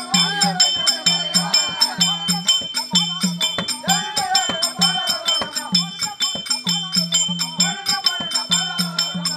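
Therukoothu folk-theatre music: small hand cymbals keep a fast, even beat of about four strokes a second, ringing on between strokes, while the dancers' ankle bells jingle. A low tone switches on and off underneath, and a bending melody runs over the top.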